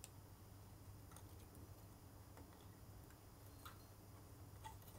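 Near silence: faint room tone with a low hum and a few soft, scattered ticks.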